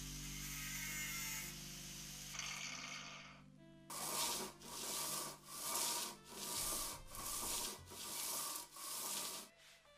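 An angle grinder with a wire cup brush runs against a steel part, then fades out about three seconds in. From about four seconds a steel bar is rubbed back and forth on abrasive paper laid on a flat plate, about eight steady strokes, roughly one and a half a second.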